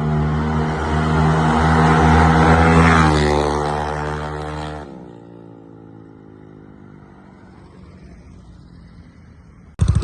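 Bored-up 200cc Yamaha Mio scooter's single-cylinder engine running steadily and growing louder, then dropping away sharply about five seconds in, its pitch sliding down as it fades to a faint drone. A loud engine sound cuts in at the very end.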